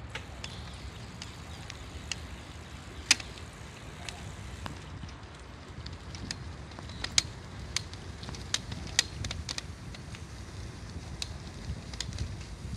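Bicycle riding over cracked asphalt and block paving: a steady low rumble with irregular sharp clicks and knocks as the bike jolts over the bumps, the loudest about 3 s in and in a cluster around 7 to 9 s in.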